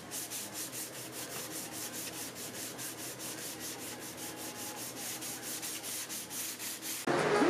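Sandpaper being rubbed by hand over body filler on a car fender, in quick, even back-and-forth strokes about four a second. It stops suddenly about seven seconds in.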